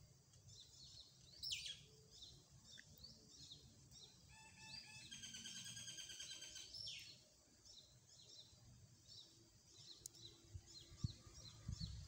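Mynas calling: a falling whistle about a second and a half in, a longer drawn-out call around five to seven seconds in, then a run of quick high chirps through the second half. A brief low bump near the end.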